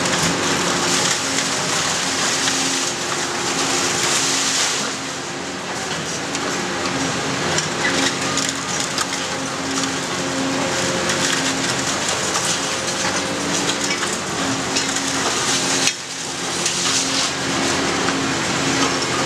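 Tracked demolition excavator's diesel engine running steadily while its demolition grab crushes and tears into the building, with crunching and clattering of breaking concrete and metal debris.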